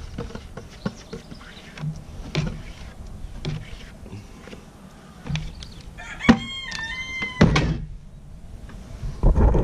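A rooster crows once, about six seconds in, for under two seconds. Under it, scattered light ticks and knocks of soaked wheat grain being tipped from a plastic bucket into a fodder tray.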